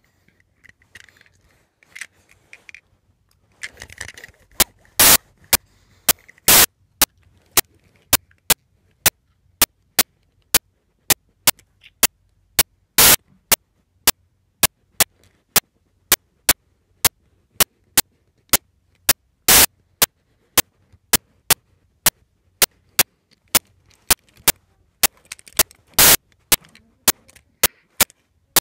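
A steady train of sharp clicks, about two a second, starting about four seconds in, with some much louder than others and near silence between them; a few faint rustling handling sounds come before.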